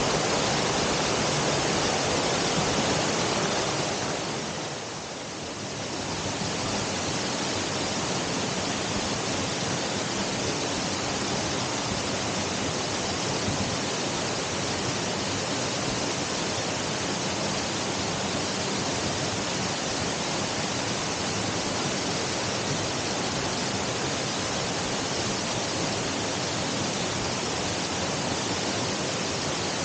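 Waterfall pouring, a steady rush of falling water that dips briefly about five seconds in.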